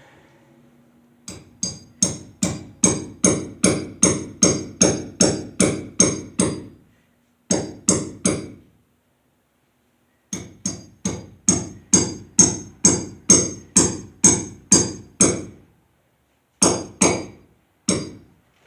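Steel hammer striking a 3/8-inch steel concrete wedge anchor, driving it down into a hole drilled in a concrete slab. The blows are sharp and ring with a metallic tone. They come in four runs at about two to three strikes a second: a long run of about fourteen, three blows, another long run of about thirteen, then three more near the end.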